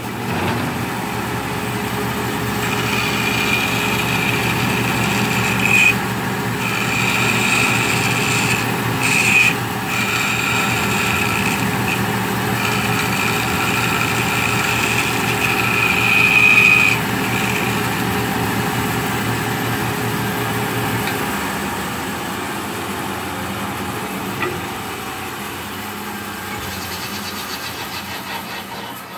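Large floor-standing band saw running and cutting a small wooden block held in a handscrew clamp, with a high whine from the blade in the cut through the first half, rising sharply a few times. Later the motor's low hum drops out and the sound slowly fades as the saw runs down.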